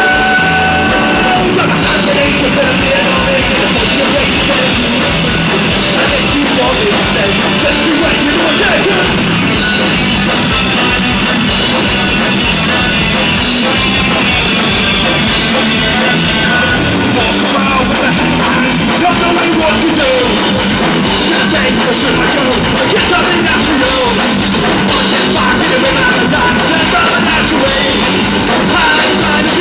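A rock band playing live at full volume: distorted guitars, bass and a drum kit with crashing cymbals, and yelled vocals now and then.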